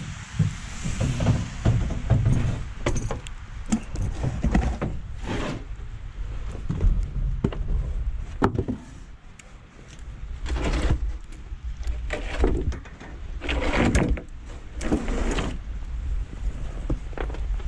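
Irregular metal clanks and thunks from truck tire-changing work, about seven of them, over a steady low rumble of wind on the microphone.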